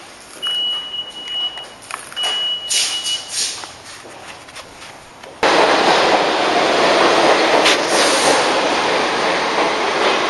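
A New York City subway train running along the platform: a loud, steady rush of wheels and rattling that starts suddenly about five seconds in. Before it, the station is quieter, with two high steady tones of about a second each.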